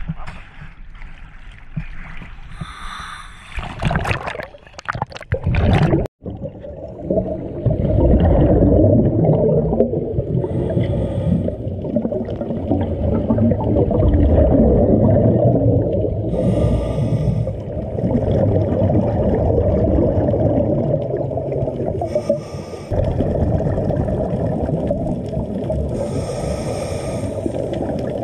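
Scuba diver breathing through a regulator, heard underwater: a loud, steady low rumble of exhaled bubbles, broken by a hiss of inhalation about every five to six seconds. Before it, a few seconds of water sloshing at the surface cut off suddenly.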